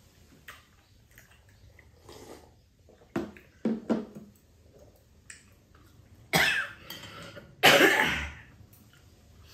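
An elderly woman coughing while eating: a few short, quieter throat sounds, then two loud coughs about a second and a half apart near the end.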